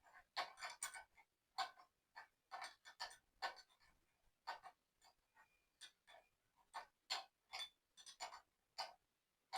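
Irregular light clicks and taps of hand tools working on metal motorcycle parts, several a second in uneven clusters.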